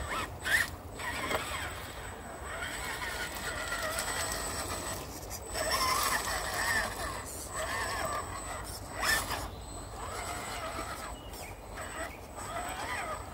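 Scale RC crawler's electric motor and gearbox whining, the pitch rising and falling with the throttle as it crawls over loose slate rock, with two sharp knocks.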